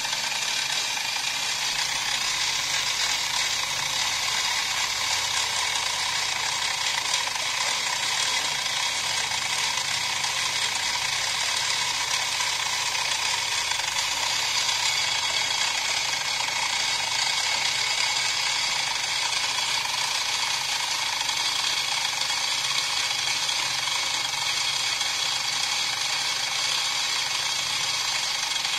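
Milling machine running, its small end mill cutting into the steel front sight of an Imbel MD6 pistol slide to make a hole for a fiber-optic insert. A steady mechanical whir with a high, hissing cutting noise that holds level throughout.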